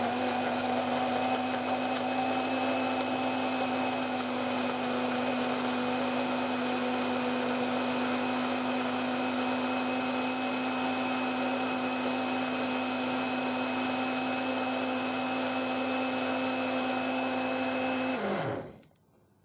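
Morphy Richards Easy Blend personal blender, its 300-watt motor and stainless steel blades running steadily on the high setting while blending milk, raspberries, ice cubes and yoghurt into a smoothie. About 18 seconds in it switches off and the motor winds down, its pitch falling.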